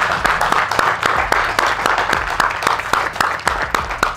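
A small group of people clapping and applauding, with quick, sharp claps all through.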